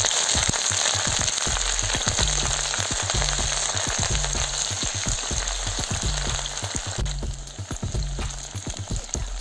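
Sliced onions sizzling as they fry in hot oil with whole spices in a steel pot, stirred with a wooden spatula. The sizzle eases a little after about seven seconds.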